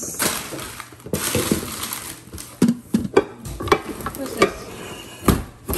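Plastic packaging crinkling and rustling, then a run of light knocks and clacks as cookware pieces and a spatula are handled.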